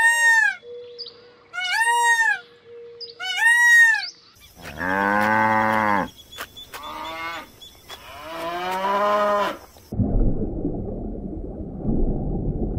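A run of separate animal calls. First come three short, high calls that rise and fall, about a second and a half apart. Then come several long, deeper lowing calls of cattle, followed by a low rumbling noise over the last few seconds.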